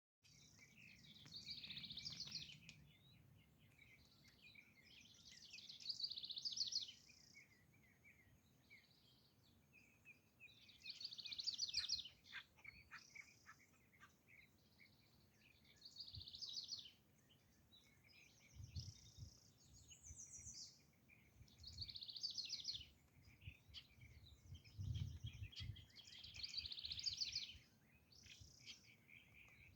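Acorn woodpeckers calling: bouts of rapid, repeated harsh notes, each lasting about a second and coming every three to five seconds. A few low rumbles sound in the second half.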